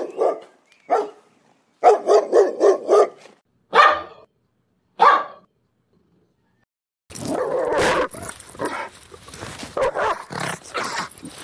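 Dog barking: quick runs of sharp barks, then single barks. After a short pause there is a longer, rougher and noisier stretch of barking.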